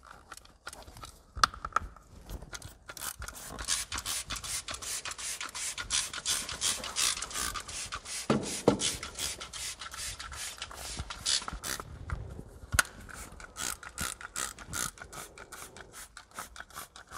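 Hand trigger sprayer pumped over and over, each pull giving a short hiss of fabric protector spray onto car carpet. The squirts come in quick succession through the middle and spread out further apart near the end.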